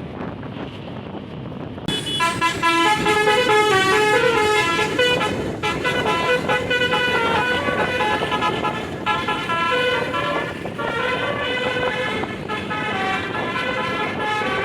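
A bus's telolet (basuri) musical air horn playing a tune of short, stepped notes, starting suddenly about two seconds in over a steady background rumble.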